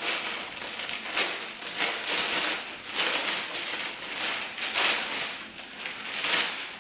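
Plastic wrapping crinkling and rustling as a ring light is pulled out of it, in irregular swells.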